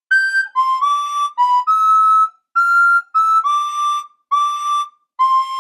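Someone whistling a tune: about ten short notes that step up and down in pitch with brief gaps between them, and a longer held note starting near the end.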